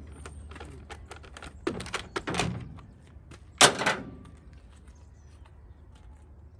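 A hand tool working a part off a chainsaw on a truck's steel tailgate: many light clicks and rattles, a louder clatter about two seconds in, and one loud knock about three and a half seconds in.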